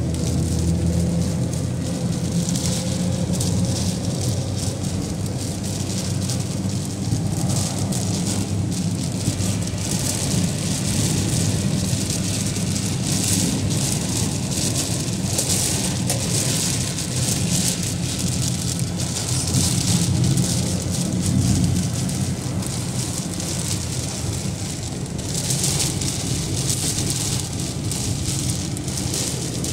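Heavy rain pelting a car's windshield and body, heard from inside the moving car over the steady low rumble of the car and its tyres on the wet road. The rain hiss swells and fades every few seconds.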